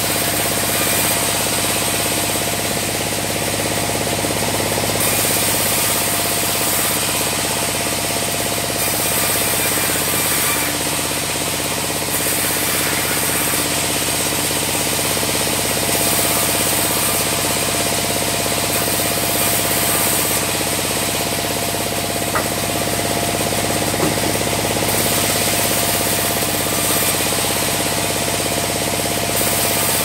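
Sawmill band saw running steadily while it cuts sengon laut logs, a machine drone under a high hiss that comes and goes every few seconds. A couple of light knocks come about three-quarters of the way through.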